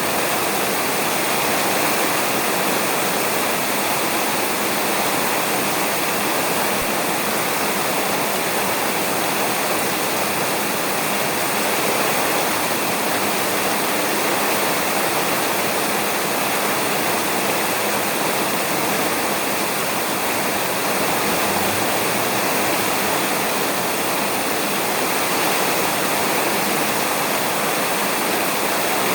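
Steady heavy rain falling on a roof, an even hiss with no let-up and no thunder.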